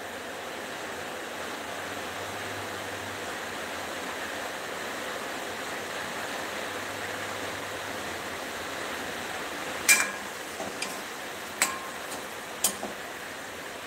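Food frying in oil in a wok, a steady sizzle. From about ten seconds in, a metal ladle clinks sharply against the wok four or five times as the mixture is stirred.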